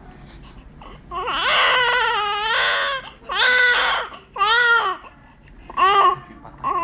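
Newborn baby crying: one long wail starting about a second in, then several shorter cries with brief gaps between them.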